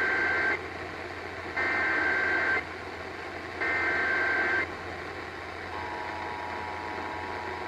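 Emergency Alert System SAME header tones played over a radio broadcast: three bursts of warbling digital data tones, each about a second long and a second apart, over steady background hiss. Near the end the steady two-tone EAS attention signal begins. Together they open an EAS activation, here a Required Monthly Test.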